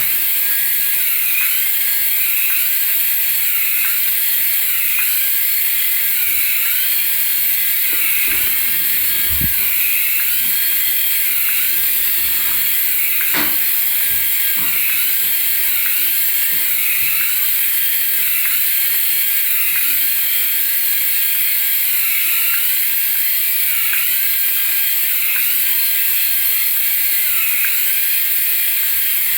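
Battery-powered toy vehicle running: a small electric motor whirring steadily, with an electronic sound effect of stepped tones repeating about every second and a half. A couple of thumps and a click come near the middle.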